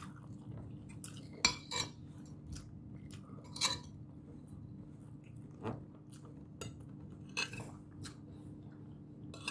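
Metal spoon and fork clinking and scraping against a plate as rice and squid adobo are scooped up, about five sharp clinks, the loudest about a second and a half in, with chewing between them. A steady low hum runs underneath.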